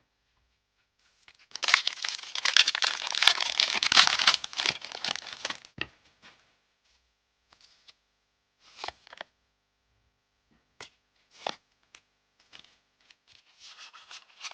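Foil booster-pack wrapper torn open and crinkled for about four seconds, then a few short ticks and rustles as the trading cards are handled.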